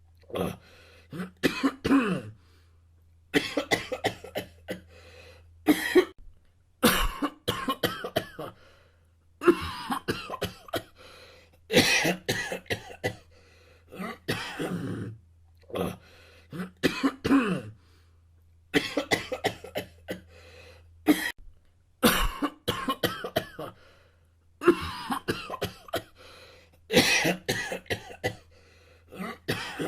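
Human coughing in repeated fits: clusters of several sharp coughs each, separated by pauses of about a second, going on throughout.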